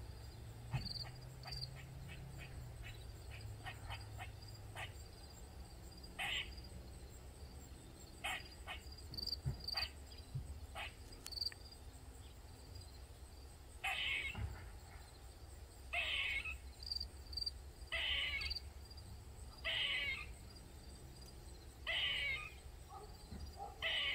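Eastern gray squirrel crying: a few short sharp ticks early, then from about halfway a short cry repeated roughly every two seconds, the calls it keeps up for many minutes.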